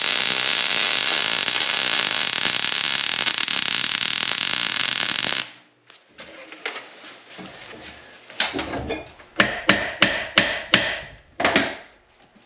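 Welding arc crackling steadily for about five and a half seconds and then cutting off, as a nut is welded onto a broken-off stud to get it out. After a pause, about seven sharp hammer taps on the welded nut and stud.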